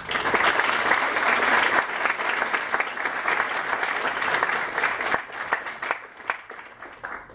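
Audience and panel applauding at the end of a talk. The clapping is dense at first, then thins to scattered claps and dies away after about five seconds.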